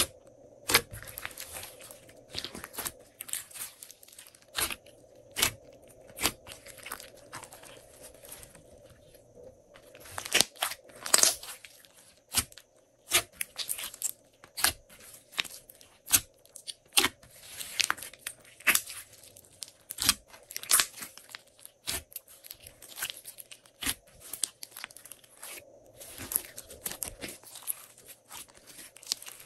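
Hands squishing, poking and stretching glossy slime: a fast, irregular run of wet pops, clicks and crackles, busier in a few stretches.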